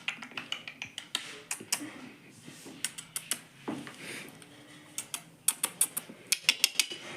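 Indian ringneck parrot eating, its beak cracking and crunching food in an irregular run of sharp clicks, with a quick cluster of clicks near the end.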